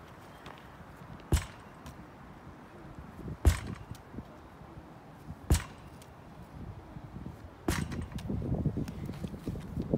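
Lacrosse ball thrown against a rebounder net and caught in a lacrosse stick: four sharp smacks about two seconds apart, from quick-stick passing. A rougher scuffing noise builds near the end.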